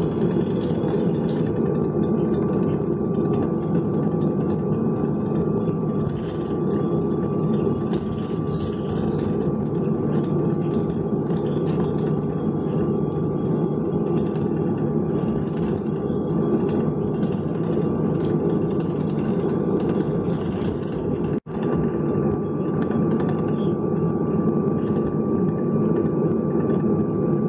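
Steady cabin noise of a Boeing 737-800 taxiing, its CFM56-7B engines at low taxi power, with a constant high whine over the rumble, heard from inside the cabin. The sound cuts out for an instant about three quarters of the way through.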